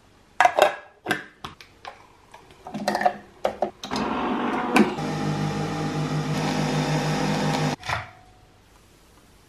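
A few clinks and knocks of cups and lids being handled, then a capsule coffee machine brewing with a steady mechanical hum for about four seconds before it cuts off suddenly.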